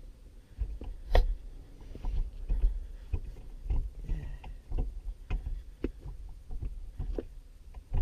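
Toyota 86 manual gear lever, fitted with a heavy aluminium Raceseng Slammer shift knob, being moved through the gears: irregular clunks and clicks with dull handling knocks, the sharpest clunk about a second in.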